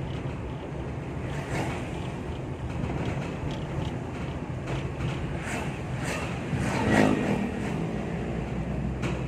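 A vehicle driving with a steady low road rumble, with short rattles and clicks throughout and one louder creak-like sound with a pitched ring about seven seconds in, the kind of strange noise heard from the bier carried in an ambulance.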